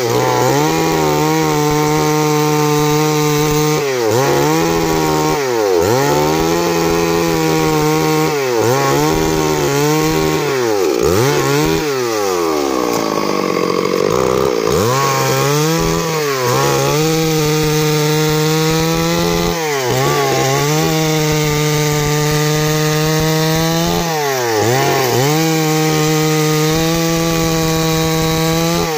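Stihl MS 382 two-stroke chainsaw running at high revs while cutting into a large tree trunk, its engine note dipping again and again as the chain loads up in the wood and recovering each time. Right at the end the revs start to fall away.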